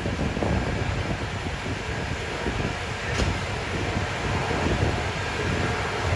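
Steady rumble of city street noise and high wind, with a short click about three seconds in.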